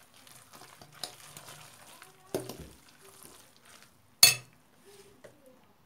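Utensil stirring thick egg-and-vegetable batter in a bowl, with soft scrapes and clicks and two knocks against the bowl, the sharpest about four seconds in.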